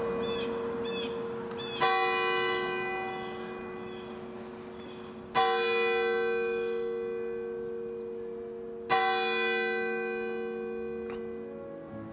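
A church tower bell tolling slowly: three strikes about three and a half seconds apart, each ringing on and fading slowly into the next.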